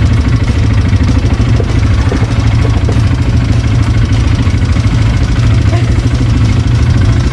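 Quad bike (ATV) engine running steadily with a constant low engine note.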